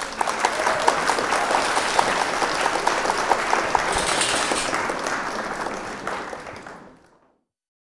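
Crowd applause: dense clapping from many hands that tails off and stops about seven seconds in.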